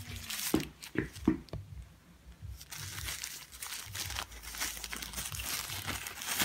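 Thin paper wrapping being crumpled and unfolded by hand: a few sharp crackles in the first second and a half, then continuous crinkling rustle from about two and a half seconds in.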